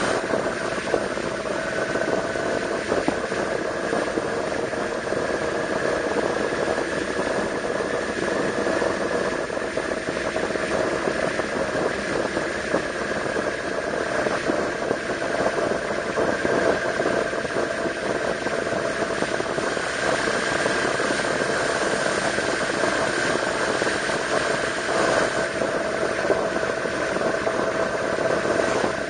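Yamaha V-Max 1200's V4 engine running steadily as the motorcycle cruises along a winding road, its pitch rising and falling only slightly, heard from the rider's chest.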